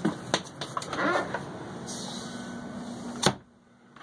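Wooden cabin doors and panels being handled: several knocks and clicks, then a sharp click a little over three seconds in, after which the sound drops out abruptly.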